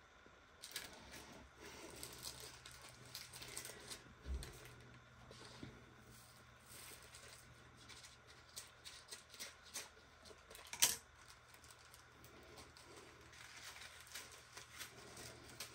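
Faint crinkling and clicking of small plastic bags of resin diamond-painting drills being handled, with a sharper click about eleven seconds in.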